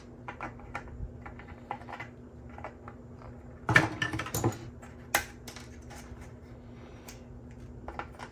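Support material being clipped and snapped off a 3D-printed plastic helmet: a run of small sharp plastic clicks and snips, with a louder burst of crackling about halfway through and a single sharp snap a second later.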